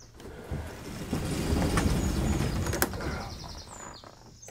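A stiff sliding boat canopy being hauled along its runners: a rumbling scrape that builds about a second in and runs for a couple of seconds with a sharp click or two, then fades; the canopy is hard work to move. Birds chirp faintly.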